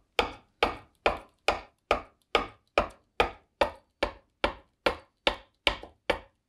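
A bowl adze chopping into green black walnut in a steady rhythm of short, sharp strokes, a little over two a second. These are light cleanup cuts inside a bowl blank.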